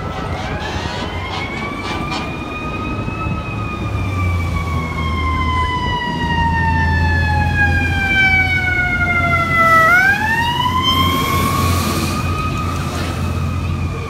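FDNY fire truck's siren wailing as it approaches through traffic: the pitch rises, falls slowly for several seconds, then climbs quickly again about ten seconds in. Low rumble of passing cars and vans underneath.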